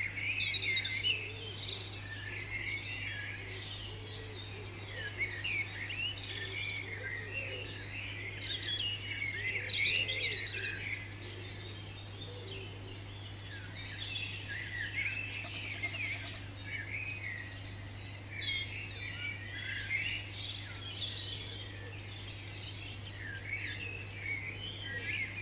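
A spring dawn chorus of British songbirds: many birds singing at once in overlapping chirps, trills and warbles, with a steady low hum underneath.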